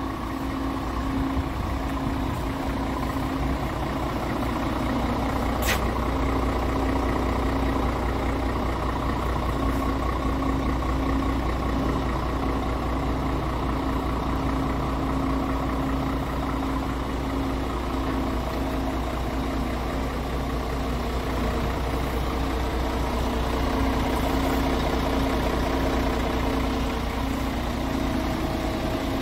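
Scania R tractor unit's diesel engine idling steadily, a low hum with a pulsing drone over it, and a brief sharp sound about six seconds in.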